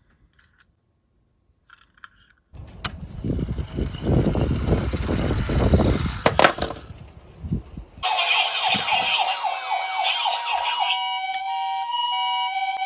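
A die-cast toy minicar rolls down a slope with a loud rattling rumble and a couple of sharp clicks, starting a few seconds in. Then an electronic siren sounds: first a fast sweeping yelp, then a steady two-tone hi-lo wail like an ambulance's.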